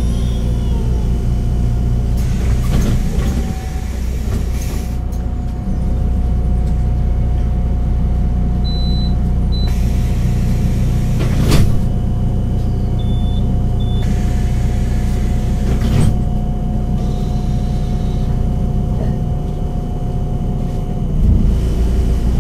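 Solaris Urbino 12 III city bus idling at a stop: a steady low diesel drone with a thin steady whine that stops near the end. Three bursts of air hiss come through, with a sharp click about halfway through.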